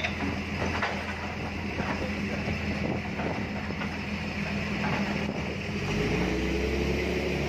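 An engine running steadily with a low hum, its note shifting lower about six seconds in, with a few short knocks on top.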